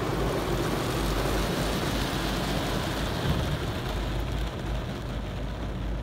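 Car wash rinse water spraying and drumming on the car's windscreen and body, heard from inside the cabin, easing off near the end.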